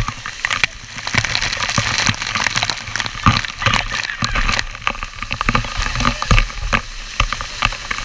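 Waterfall water pouring down onto the camera: a loud, dense crackle of drops striking it close up over the steady rush of falling water.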